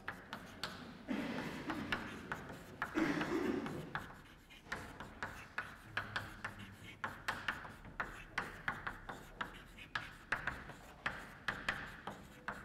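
Chalk tapping and scraping on a chalkboard as a heading is written in capital letters: a quick run of short, sharp ticks, one for each stroke. A louder, noisier rustle stands out between about one and four seconds in.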